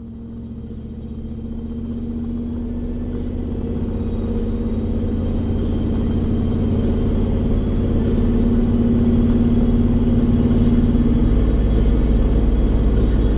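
Steady low engine drone from the 1980 Chevy C30 rollback's swapped-in 8.1-liter Vortec V8, fading up over the first several seconds. Background music plays over it.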